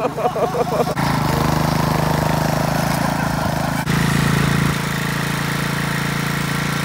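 Rear-engine riding lawn mower's small engine running steadily under throttle, its level and pitch shifting abruptly about one second in and again near four seconds.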